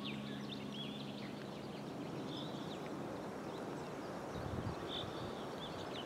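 Small birds chirping now and then over the steady hiss of the river and the breeze.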